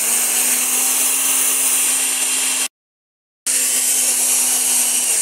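Osterizer countertop blender running at full speed, its motor and blades whirring steadily over a low hum as they liquidise pawpaw leaves with water. The sound cuts out completely for under a second about midway, then carries on unchanged.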